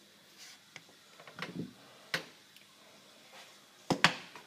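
Light clicks and taps of small plastic items being handled on a workbench, ending in a sharp double knock about four seconds in as the 2-pack Araldite syringe is put down.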